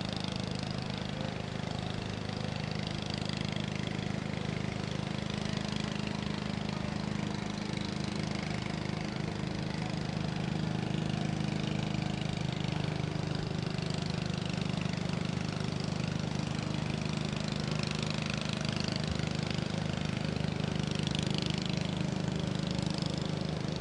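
An engine running steadily at one even speed, a low hum with hiss above it.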